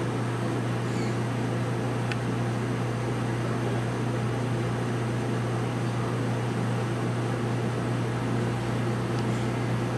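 Room tone: a steady low hum with an even hiss over it.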